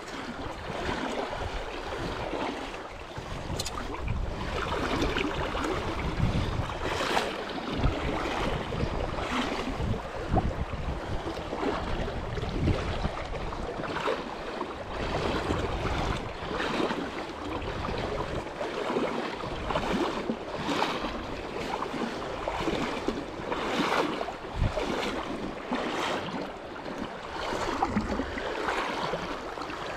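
Steady rush of flowing river water, with gusts of wind buffeting the microphone.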